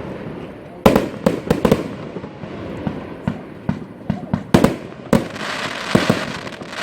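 Category F2 consumer fireworks going off: an irregular series of sharp bangs and pops, the loudest a little under a second in and again about two-thirds of the way through, followed near the end by a swelling crackling hiss.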